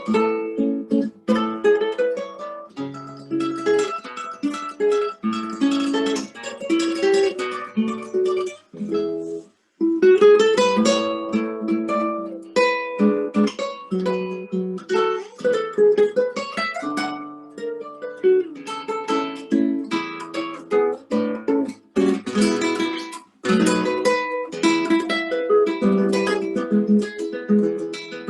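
Solo guitar playing a waltz, plucked notes and chords, with a brief break about ten seconds in.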